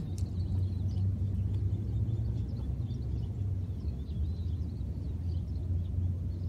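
Outdoor background: a steady low rumble with faint, scattered high bird chirps over it.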